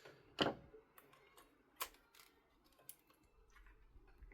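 Scattered faint plastic clicks and taps from handling a partly dismantled Razer Ornata Chroma keyboard. The clearest comes about half a second in and another near two seconds, with smaller ticks between.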